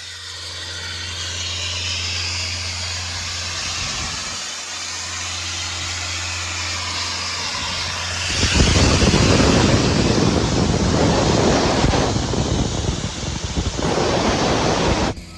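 Doosan C185 diesel air compressor running steadily, its Kubota V2403 four-cylinder diesel humming under a hiss of air. About eight seconds in, a much louder rushing, hissing noise takes over, then cuts off sharply near the end.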